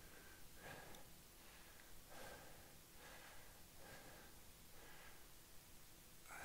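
A man's faint breathing, a few slow breaths in and out while he holds a single-leg forward-tilted balance.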